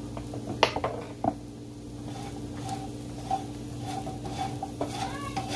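Wooden spatula stirring roasting chickpeas in a nonstick frying pan, the chickpeas rattling and scraping against the pan, with two sharp knocks about half a second and a second in, over a steady low hum.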